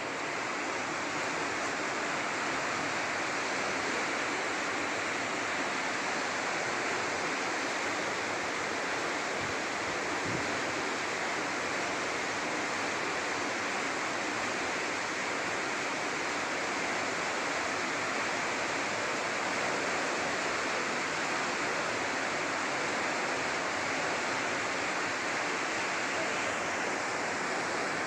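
Water rushing through a river sluice gate at full flow, a steady, unbroken rush.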